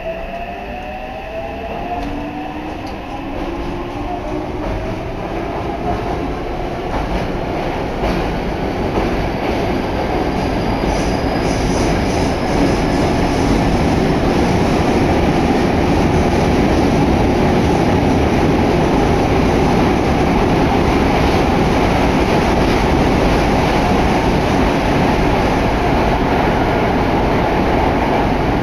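Subway train heard from inside the carriage, picking up speed with a rising electric motor whine in the first few seconds. It then runs steadily at speed with a loud, even roar of wheels on rails, growing louder over about the first dozen seconds.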